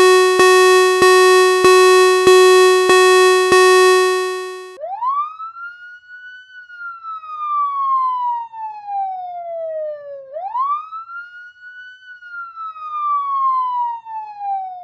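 A fire-engine siren sound effect. A harsh buzzing horn blares for about five seconds with a click roughly every 0.6 s. Then a siren wails twice, each time rising quickly and sinking slowly.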